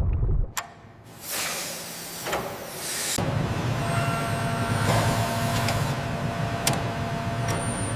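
Mechanical sound design: a low rumble cuts out, a hiss swells into a whoosh, then a steady low machine rumble with a thin hum tone and a couple of sharp clicks sets in about three seconds in.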